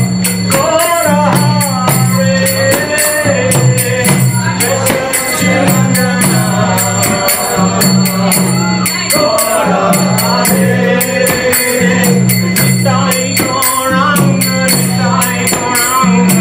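Kirtan: a group singing a devotional chant together, over a low sustained accompaniment, with hand cymbals and a mridanga drum keeping a fast, steady beat.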